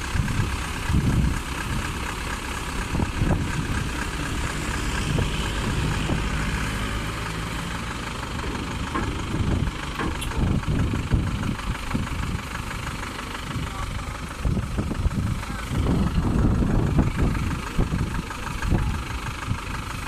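Combine harvester's diesel engine idling steadily, swelling louder briefly a few times.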